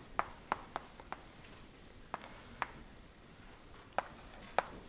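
Chalk writing on a chalkboard: sharp little taps and scrapes of the chalk as letters are written, coming in small groups with short pauses between.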